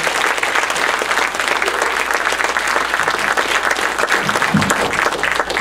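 Congregation applauding steadily, a dense patter of many hands clapping.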